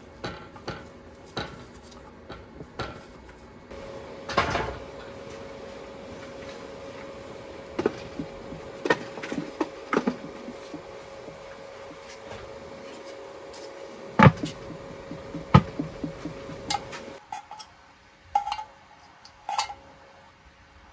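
Cooking-prep sounds: a folding knife cutting kabocha pumpkin on a wooden cutting board with light knocks, then wooden steamer boxes being knocked and set in place with several sharp wooden clunks over a steady faint hum. Near the end, a few knocks as a can of shellfish meat is tipped out onto the board.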